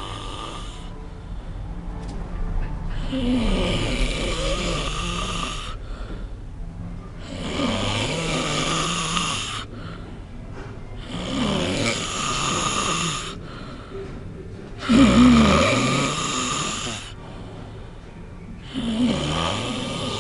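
A sleeping man snoring loudly, with one long snore about every four seconds and the loudest about three-quarters of the way through.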